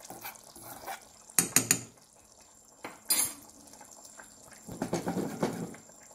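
A metal spoon knocking and scraping in a frying pan of ground cumin being dry-roasted: a quick run of three sharp clinks about a second and a half in, another clink near three seconds, and a longer scrape around five seconds.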